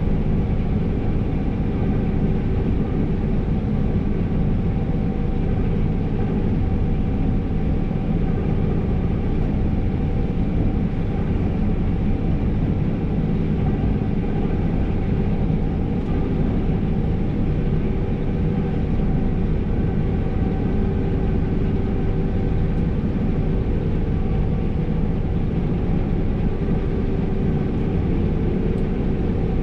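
New Holland CR 5.85 combine harvester heard from inside its cab while harvesting: a steady drone of the engine and threshing machinery running under load, with several steady hum tones and no change in speed.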